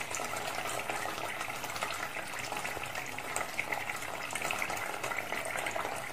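Water pouring steadily from the plastic tap at the bottom of a water container into a plastic tub below, draining the container.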